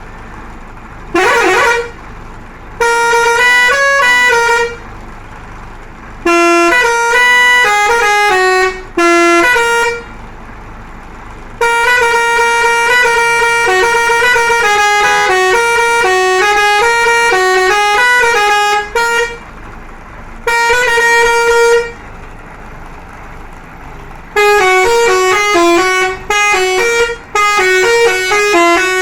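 A bus's musical horn playing a tune in phrases of quick stepping notes, with short pauses between the phrases. A brief rising glide comes about a second in.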